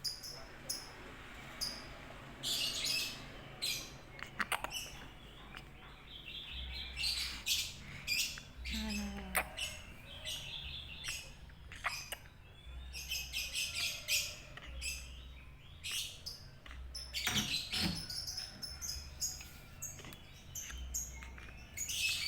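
Small birds chirping repeatedly in short bursts of high calls, sometimes several at once.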